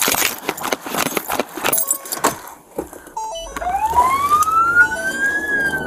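Hurried clattering of a deputy's duty gear and jangling keys, followed by a few short electronic chimes as he gets into the patrol SUV. Its engine then starts with a low rumble, and the police siren begins a wail that rises for about two seconds, peaks and starts to fall near the end.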